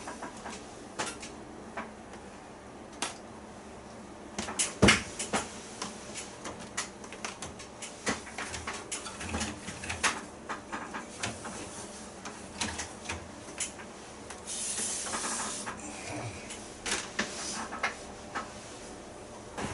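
Irregular clicks and knocks of hard plastic parts being handled on an air-conditioner indoor unit, the loudest knock about five seconds in, with a short hiss about fifteen seconds in.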